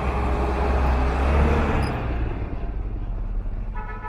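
A motor vehicle passing close by in street traffic: a loud low engine rumble that peaks about a second and a half in, then fades away. A car horn starts honking right at the end.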